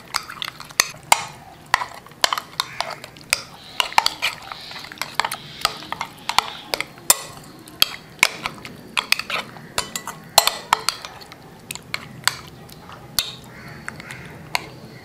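A spoon stirring raw chicken pieces through an egg and chilli marinade in a glass bowl: repeated irregular clinks of the spoon against the bowl over the wet squish of the coated meat.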